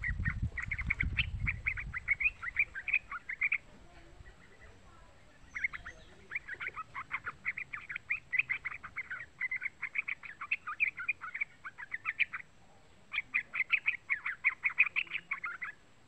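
Young yellow-vented bulbul singing in three bouts of quick, chattering notes, with short pauses about four seconds in and again about twelve seconds in. Low rumbling sits under the first two seconds.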